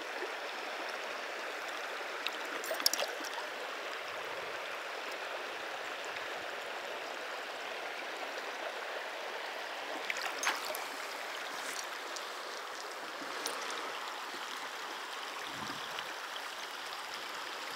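Shallow river current running steadily over a gravel and cobble riffle, with a couple of short sharp sounds about three and ten seconds in.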